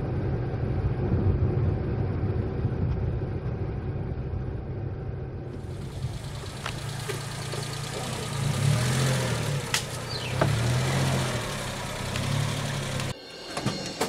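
Maruti Suzuki Omni van's small three-cylinder petrol engine running at low speed as the van pulls up, its note rising and falling a little, with a couple of light clicks. The engine sound cuts off abruptly near the end.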